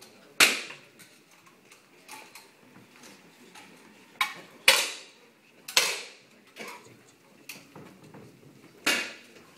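10 m air rifles firing: several sharp reports spread through, each dying away in a short echo, with fainter mechanical clicks between the shots.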